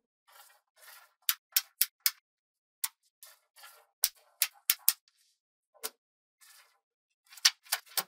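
Small magnetic balls snapping together with sharp, irregular clicks as blocks of them are pressed onto a larger slab, with softer rattling of the balls between the clicks and a quick run of clicks near the end.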